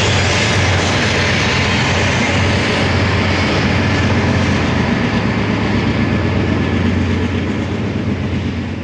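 Rear distributed-power diesel locomotives of a BNSF coil train running past and moving away: a steady low engine hum over wheel-on-rail noise, beginning to fade near the end.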